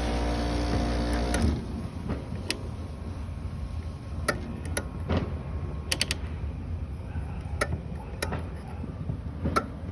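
Tecumseh rotary compressor of a Fedders window air conditioner running with a loud, steady hum, then cutting off abruptly about a second and a half in. The unit's condenser fan motor is seized, so the compressor is run only briefly. Scattered sharp clicks and ticks of the unit being handled follow.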